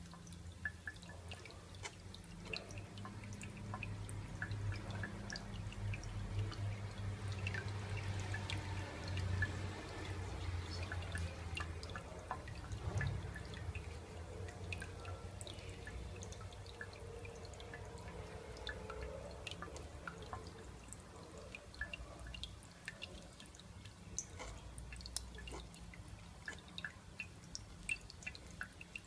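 Water droplets splashing and dripping in quick, irregular patters as a pet bird bathes, over a low steady hum.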